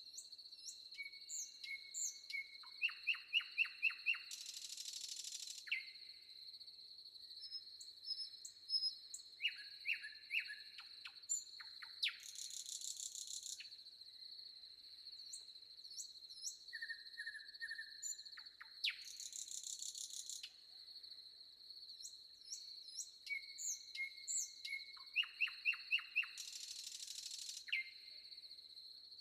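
Forest ambience: several birds chirping and trilling in short, repeated phrases over a steady, high-pitched insect drone. A loud rasping buzz of about a second and a half recurs four times, roughly every seven seconds.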